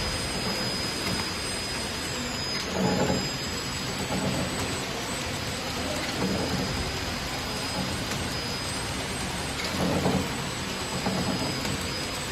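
Flow-wrap packing machine running: a steady mechanical hiss with a faint high whine, broken by several dull thumps at uneven intervals as pies are wrapped in film.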